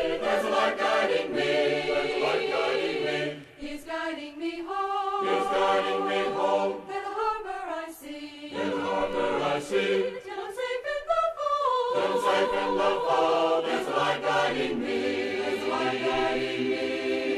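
Choir singing a cappella, several voices holding sustained notes in harmony, in phrases with short breaks between them.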